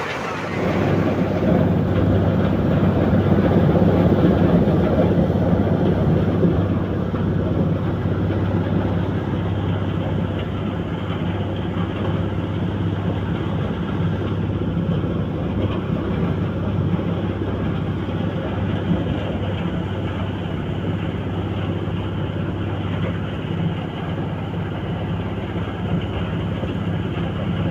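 Motor-driven corn sheller running steadily, its engine hum under the rattling din of the threshing drum at work, a little louder a few seconds in.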